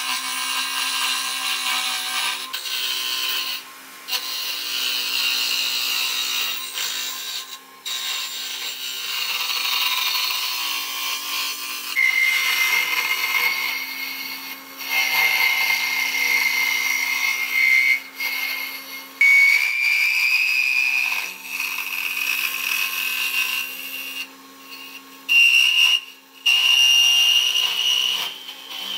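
Small wood lathe spinning a wooden spindle blank while a carbide-insert cutter in a tool post turns it: a steady motor hum under a scraping, hissing cut. Through the second half a high whine comes from the cut, creeping up in pitch, and the sound breaks off briefly several times.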